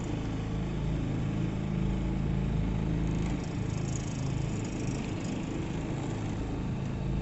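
Small hire motorboat's engine running steadily as the boat cruises, a low even hum with a steady hiss over it.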